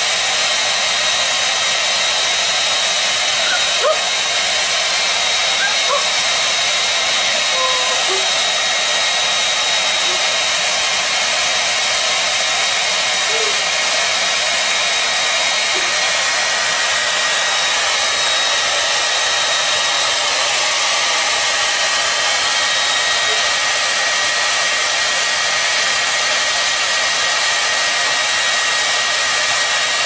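Hand-held hair dryer running steadily, a constant rush of blown air with a thin steady whine on top. A few faint short sounds sit under it in the first half.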